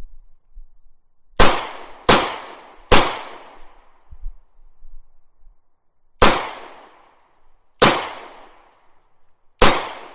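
Gunshot sound effects: three shots in quick succession, then three more spaced a second or two apart, each with a long echoing tail.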